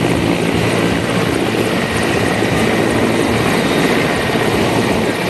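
Helicopter running, its rotor and engine noise loud and steady.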